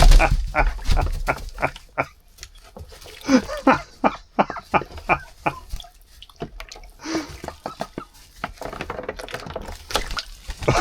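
Domestic ducks dabbling and calling softly, with splashing in water: a rapid run of short clicks and splashes, several a second, and a few brief low quacks. There is a loud low thump right at the start.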